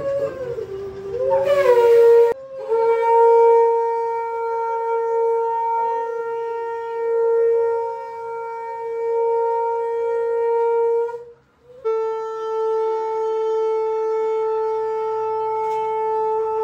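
Shankha conch shells being blown: a couple of seconds of wavering pitch, then a long steady blast of about eight seconds, a short break, and a second held blast of about five seconds.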